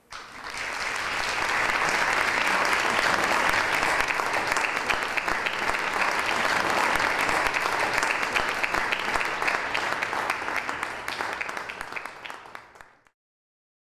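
Audience applauding, building up quickly, holding steady, then fading near the end and cutting off.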